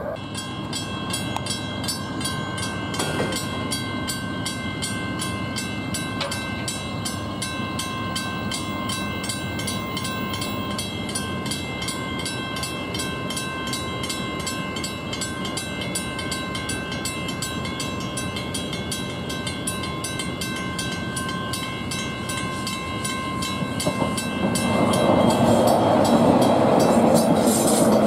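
Level crossing warning bell ringing in rapid, evenly spaced strokes. About four seconds before the end, an electric passenger train comes through the crossing. Its rumble rises and becomes the loudest sound.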